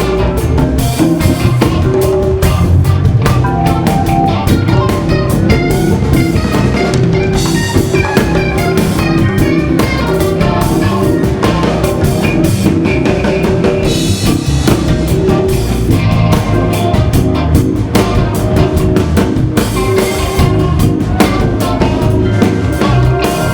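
Live band music: a Hammond organ playing held chords and lines over a drum kit groove.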